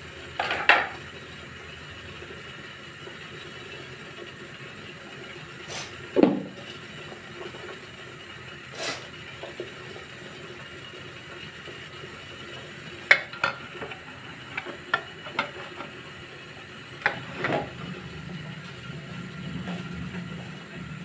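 Scattered knocks and clinks of kitchen pots, lids and plates being handled, over a steady background hiss.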